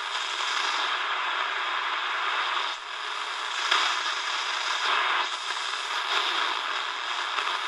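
Shortwave static hissing from the Tecsun DR-910's small speaker as it is tuned slowly upward between stations. The noise swells and dips a few times.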